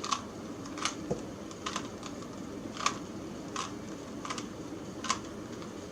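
Plastic Rubik's Cube being twisted, each turn of a layer making a short, sharp click, about seven clicks at uneven intervals of under a second.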